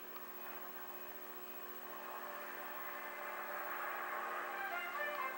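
Philco Predicta television's speaker playing faint, muffled programme sound over a steady hum and buzz, the programme sound growing louder from about two seconds in.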